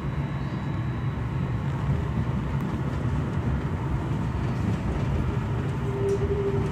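Passenger train running over the tracks, heard from inside the carriage: a steady low rumble of wheels and running gear. A short whine joins in about six seconds in.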